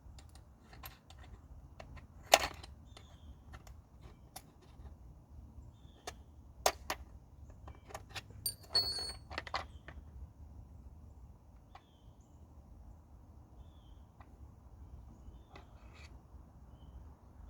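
Scattered metallic clicks and knocks of drill bits being handled and swapped in the drill's chuck, with one sharp knock about two seconds in and a cluster of clicks in the middle. The drill motor is not running.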